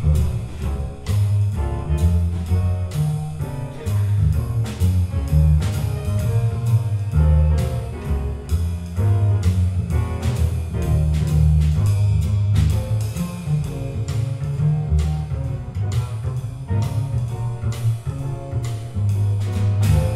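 Pizzicato double bass solo in a jazz setting: a walking, quickly changing line of plucked low notes on an upright bass, with light percussive ticks keeping time behind it.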